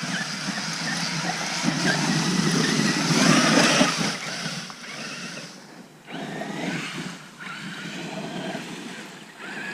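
Traxxas RC truck driving off-road, heard from its onboard camera: a rushing mix of tyre and motor noise that swells to its loudest about three to four seconds in, then drops out briefly twice.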